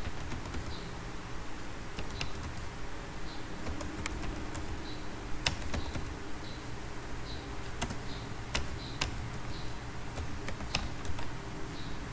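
Typing on a computer keyboard: irregular sharp keystroke clicks, a few at a time, as figures are entered, over a steady low background hum.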